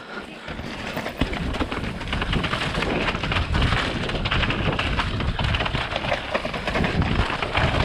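Wind rushing over the microphone of a body-mounted camera, with a rough rattling clatter from a mountain bike riding fast over rough trail. It grows louder about a second in and then stays steady.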